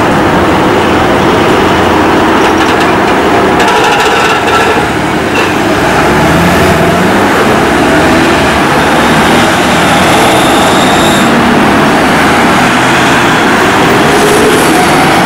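Busy city traffic passing close by, with a trolleybus among it; the electric drive's whine rises in pitch as it pulls away, in the middle and again near the end.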